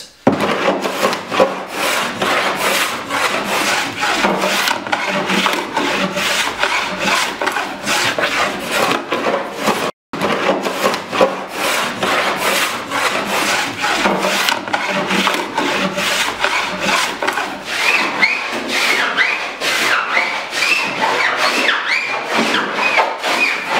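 Hand block plane shaving a cedar-strip kayak hull in quick, repeated strokes, knocking down the high ridges between the strips to fair the hull. There is a brief break about ten seconds in.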